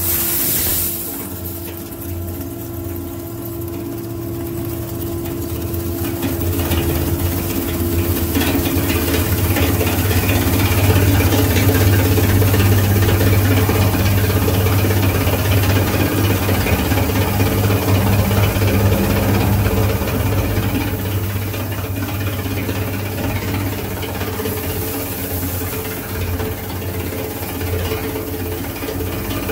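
Single-shaft shredder running, its rotor chewing through a load of aluminium can pull-tabs: a steady machine hum under a continuous crunching rattle of metal. A high rushing hiss of tabs pouring into the hopper cuts off about a second in. The shredding grows louder from about seven seconds in and eases off in the last third.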